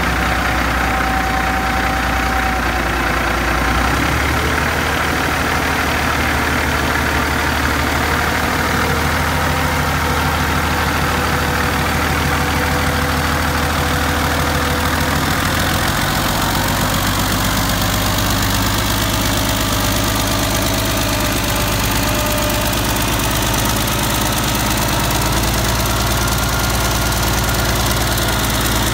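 2005 Cummins ISX inline-six diesel engine idling steadily on a stand, out of the truck: a used engine that is a good runner.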